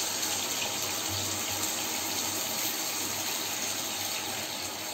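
Water pouring in a steady stream into a kadai of frying spice paste and papaya pieces, splashing into the liquid. A lot of water is going in to make a thin curry broth.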